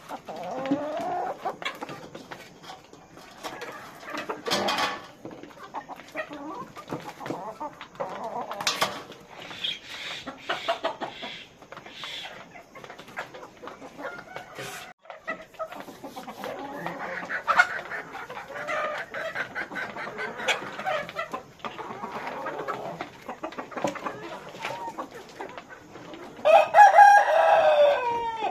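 A flock of chickens clucking and calling continuously, with a rooster crowing loudly near the end, the crow falling off at its close.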